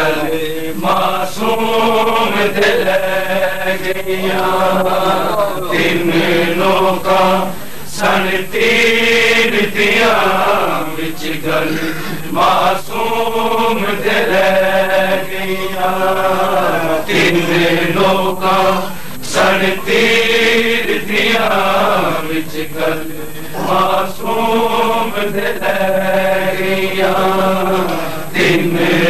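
Male voices chanting a Punjabi noha, a Shia mourning lament, in drawn-out sung phrases of a couple of seconds each with short breaks between them.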